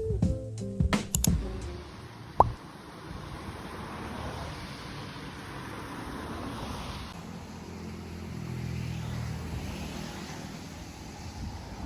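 Strummed guitar music ends about a second in. A single sharp click follows, then a steady, even background noise without any clear source.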